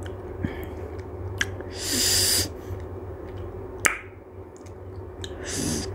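A man sharply sucking in air with a hiss through his teeth, about two seconds in and again near the end, with a few sharp mouth clicks between. It is a reaction to the sour, chilli-hot panipuri water.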